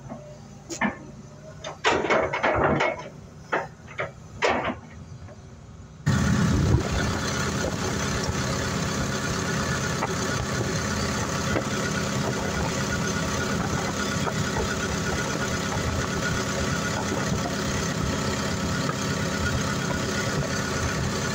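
A few short knocks and rattles in the first seconds, then, from about six seconds in, the excavator's Isuzu diesel engine idling steadily, heard close up in the open engine bay.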